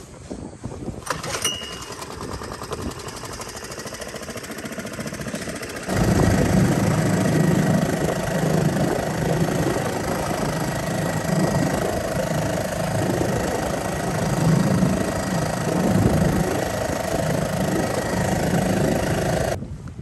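Small 2-horsepower outboard motor running steadily. It comes in abruptly about six seconds in, over wind and water noise, and stops just before the end.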